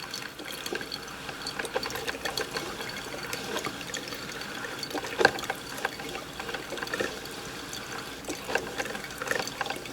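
Drip coffee maker brewing, with hot cocoa streaming steadily down through the basket into the pot amid many small drips and pops. The liquid is flowing freely because the cocoa powder in the basket has dissolved.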